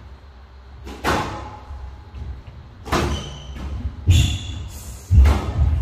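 Squash rally: the ball struck by rackets and smacking the court's walls and glass. There are four sharp hits about a second apart, and the last two are heavier thuds.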